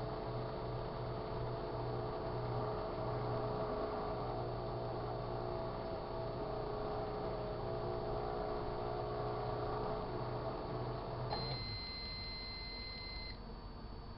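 Sharp Carousel microwave oven running with a steady hum, which cuts off about eleven seconds in. It then sounds one high end-of-cycle beep, held for about two seconds, signalling that the heating is done.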